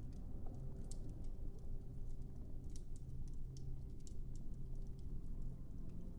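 Fireplace crackling, with irregular sharp pops and snaps over a steady low rumble.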